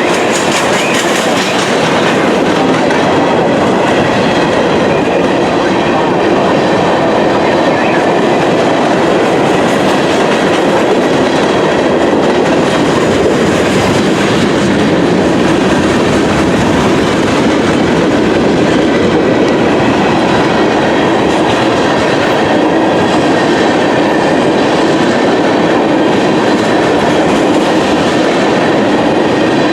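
Railroad cars rolling past on the track: a loud, steady rumble and rattle of wheels on rail that holds unchanged throughout.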